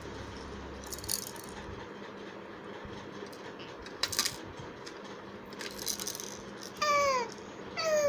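Young child's voice: a few short noisy bursts, then two short cries falling in pitch near the end, the loudest sounds.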